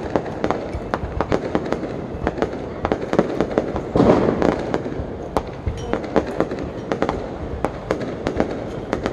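Aerial fireworks display: a rapid, irregular run of bangs and crackles from bursting shells, with a louder burst about four seconds in.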